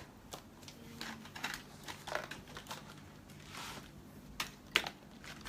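Small hard objects and packaging being handled: scattered light clicks and taps, the two sharpest about four and a half seconds in, with a brief soft rustle a little before them.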